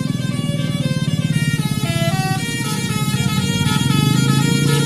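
A bus's Basuri 'telolet' musical horn playing a tune, several horn tones sounding together and changing pitch in quick steps from about a second in. The bus's engine runs underneath.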